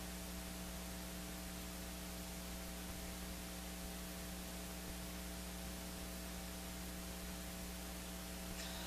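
Steady electrical mains hum with faint hiss: a constant drone of several steady tones that does not change.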